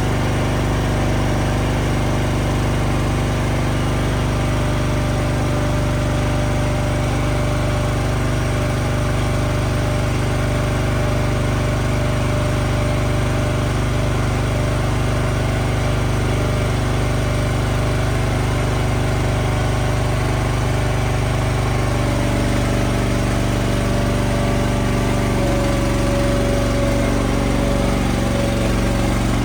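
Engine of a piece of farm machinery running steadily, its note shifting about 22 seconds in.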